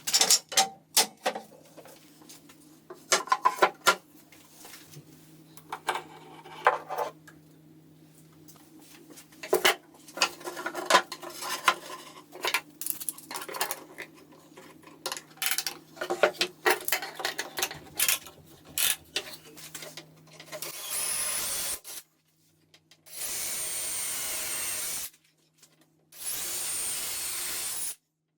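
Tools and wood being handled: irregular knocks, clatters and scraping over a faint low steady hum. Then, about two-thirds of the way through, a power tool with a high whine runs in three short bursts of about two seconds each.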